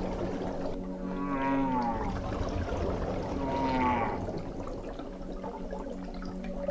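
Whale song: two drawn-out calls, each bending in pitch, about a second in and again near the four-second mark, over a steady low tone.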